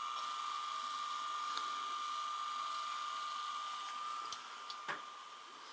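The open tape mechanism of a Philips DVD755VR DVD/VCR combo running with a cassette loaded: a steady high whine over a hiss, which the owner calls a well-worn mechanism. The whine drops about four seconds in, and a single click follows.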